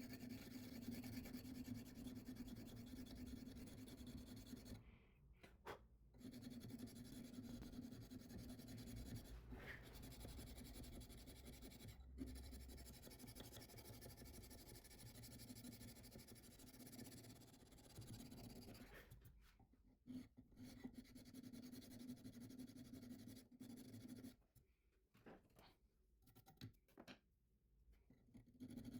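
Faint scratching of coarse sandpaper, backed by a file, rubbed back and forth across a steel knife blade in hand cross-sanding to remove grinder scratches. It stops briefly twice and pauses for several seconds near the end.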